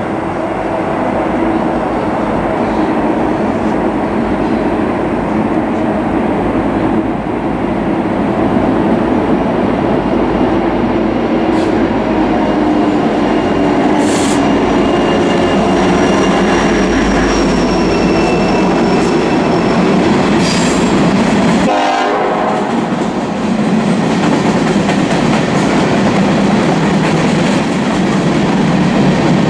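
BNSF empty coal train passing: the lead diesel locomotives run as they come up and pass below, then the empty coal hopper cars roll by with the wheels clicking over the rail joints.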